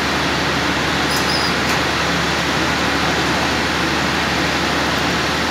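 Steady machinery noise from a mobile flash butt rail-welding plant running, an even hum and hiss with no change in level, and a couple of faint light clicks about a second in.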